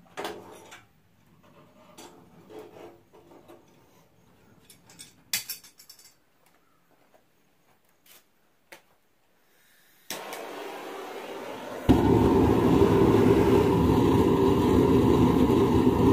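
Faint scattered clicks and knocks, then about ten seconds in a forge starts with a steady rushing noise. It turns much louder about two seconds later and keeps going.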